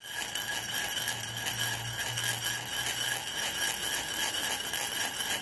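Channel intro sound effect: several steady high ringing tones that flutter rapidly, glassy and chime-like, with a low hum under it from about a second in to about three seconds in.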